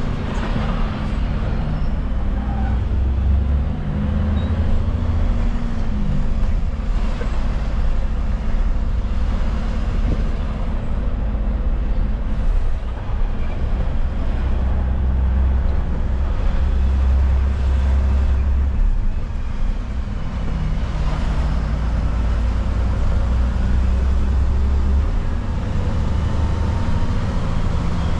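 Refuse truck's diesel engine running as the truck drives, its engine note shifting up and down several times, with road noise.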